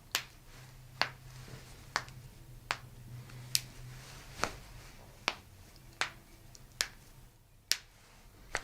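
A series of sharp, short clicks repeating evenly, a little more than one a second, over a faint low steady hum.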